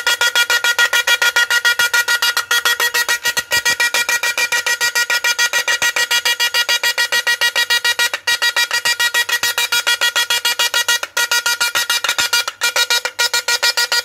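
A homemade 48-FET electric fish-shocking machine running with its metal plate electrode in a bucket of water. It gives a loud, high buzz in rapid even pulses, several a second, as it discharges into the water, which froths and sparks. The buzz drops out briefly a few times.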